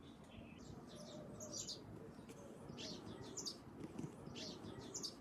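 Small songbirds chirping in short, high twittering bursts that come in three clusters about a second and a half apart, over a faint low background rumble.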